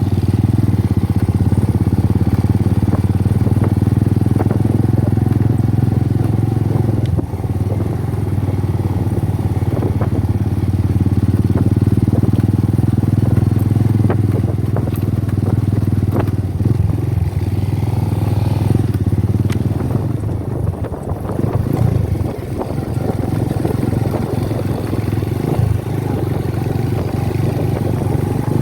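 An engine running steadily with a low drone, dipping briefly about seven seconds in and running more unevenly around twenty seconds in.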